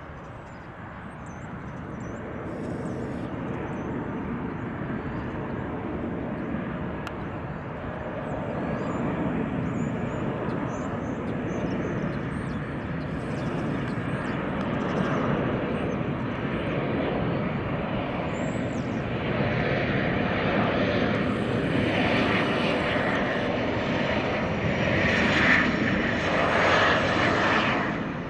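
Boeing 737-800 airliner's CFM56 turbofan engines on final approach: a steady jet engine noise that grows louder as the plane comes close and flies past, loudest shortly before the end, then dropping away quickly.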